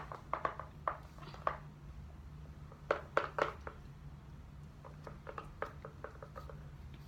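Irregular light clinks and taps of a utensil or container against a slime bowl, in short clusters, as eyeshadow or paint is tapped and scraped in.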